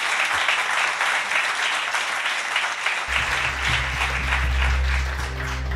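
Audience applauding, with background music coming in about three seconds in.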